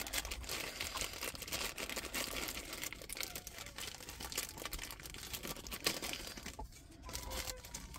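Clear plastic bag crinkling as it is handled and pulled open by hand: a steady run of small crackles.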